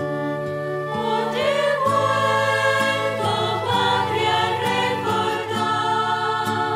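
Catholic devotional song: steady held chords, with singing coming in about a second in.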